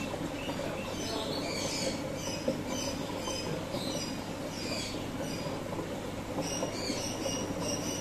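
Small birds chirping in quick, short high calls, several a second, over a steady low rumble of flowing water and a faint hum from the aquarium's filter.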